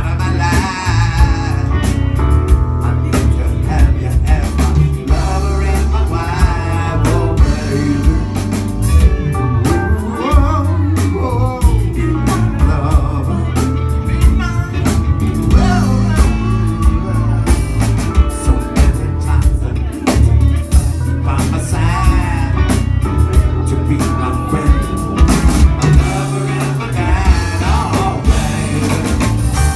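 Live band playing a song: singing over drums, guitar and keyboard.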